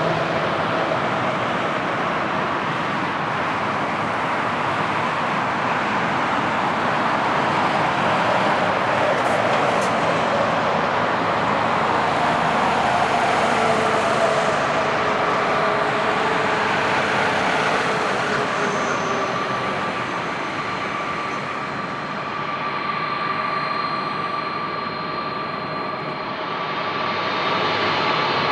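Jet airliner's engines on approach to land, a steady rushing noise with an engine whine that slowly falls in pitch as the aircraft passes. A higher steady whine comes in over the last few seconds.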